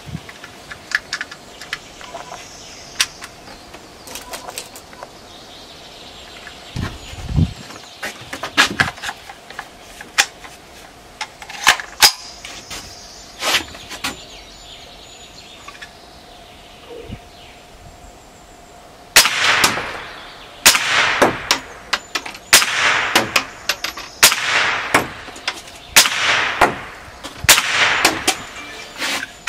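Scattered clicks and a few sharp cracks, then a run of single shots from a Smith & Wesson M&P15-22 semi-automatic .22 LR rifle, about one every one and a half to two seconds in the second half, each trailing off in a short echo.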